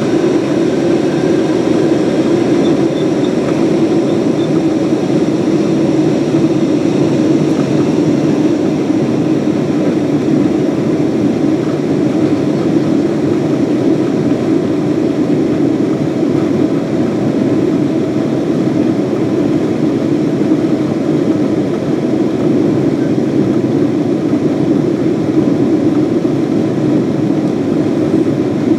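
Cabin noise of a Boeing 777-200's Pratt & Whitney PW4000-series engines at takeoff thrust during liftoff and climb-out, heard from inside the cabin behind the wing: a steady, loud roar with faint high whining tones above it.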